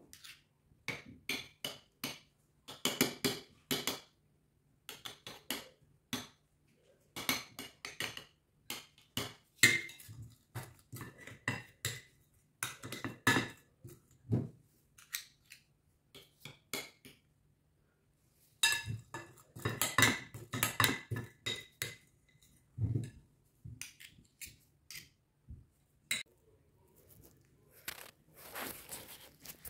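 Cutlery and dishes clinking and scraping in irregular bursts, a few strikes ringing briefly, with a quiet stretch about halfway through.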